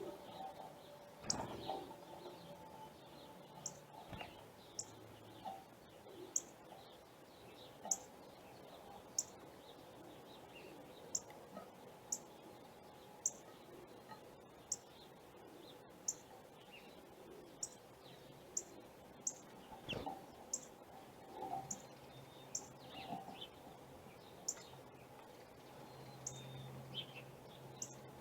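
Small birds chirping: short, very high chirps repeating roughly once a second, with fainter lower calls among them.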